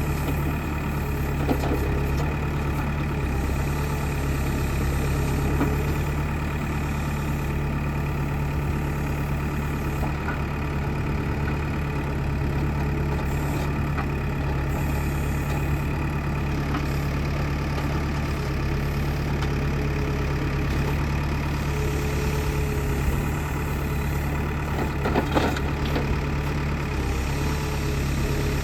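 Backhoe loader's diesel engine idling steadily, with a few light knocks near the end.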